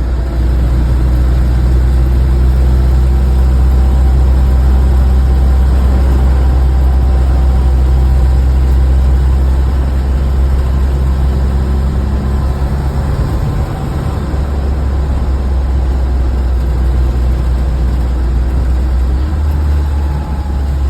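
A 1974 BMW 2002 Touring running, with a loud, steady low drone and a few faint steady whining tones above it. The owner supposes this is an abnormal noise from the rear axle.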